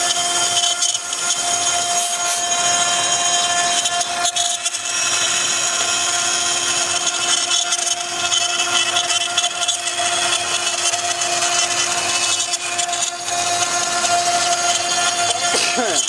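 Wood CNC router's 3.5 kW spindle running at high speed, its carving bit cutting a relief into a wooden board: a steady whine over the hiss and rasp of the bit chewing through wood. A short rising whine comes just before the end.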